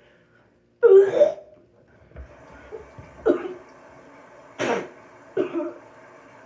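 A person coughing: a loud voiced cough about a second in, then a few shorter coughs over the next several seconds, the sharpest near the end.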